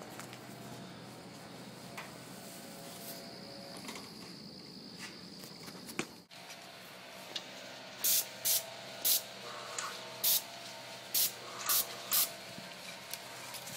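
Paint sprayer spraying exterior brick: a steady hiss over a low hum, a brief dropout about six seconds in, then about seven short, sharp bursts of spray hiss in quick succession.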